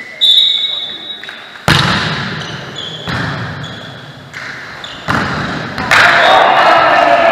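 A volleyball rally in a reverberant sports hall: the ball is struck sharply about two, three and five seconds in, with short shoe squeaks on the court floor between the hits. Players shout and cheer loudly near the end as the rally is decided.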